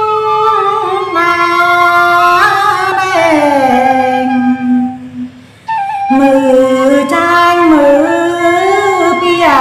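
A woman singing a slow Tày phong slư folk song in long held, gently wavering notes, with a short break about halfway through before the melody resumes.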